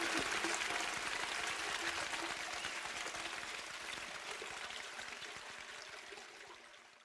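Toilet flushing: a sudden rush of water into the bowl that slowly fades as it drains away over several seconds.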